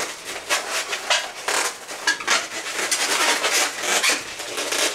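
Latex modelling balloons squeaking and rubbing against each other and against the hands as bubbles are twisted and tucked into place, in a run of short, uneven squeaks.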